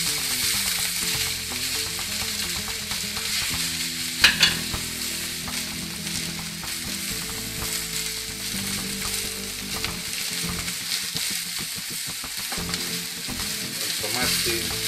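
Chopped asparagus, mushrooms and peppers sizzling in oil in a steel paella pan, stirred and scraped with a wooden spatula, with small clicks throughout. One sharp knock about four seconds in.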